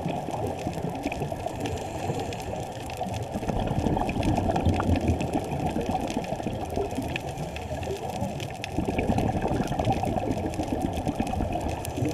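Scuba diver's regulator breathing and exhaled bubbles, heard muffled through a GoPro's waterproof housing underwater: a dull, rumbling bubbling that swells about four seconds in and again about nine seconds in.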